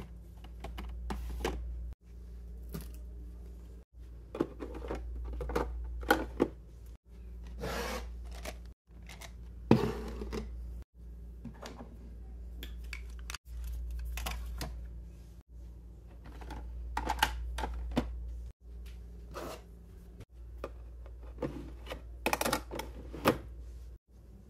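Makeup products and clear plastic organiser drawers being handled: small plastic clicks, taps and scrapes as tubes and compacts are picked up and set down and drawers slide. A low steady hum runs beneath, and everything cuts off briefly every two or three seconds.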